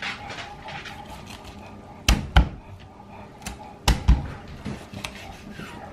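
Chef's knife chopping rabbit pieces on a plastic cutting board: four heavy thuds in two quick pairs about a second and a half apart, with lighter knife strokes before and between them.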